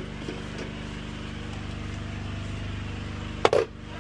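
Steady low machine hum, a motor running with a fine even pulse, with a small click near the start and one sharp loud knock about three and a half seconds in.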